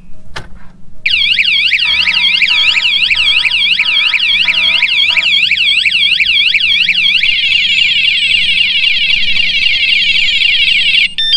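Vibration-triggered bicycle anti-theft alarm going off, set off by tampering with the bike's thru-axle. Its loud electronic siren sweeps rapidly up and down, switches to a faster warble about halfway through, then cuts off near the end with a few short beeps.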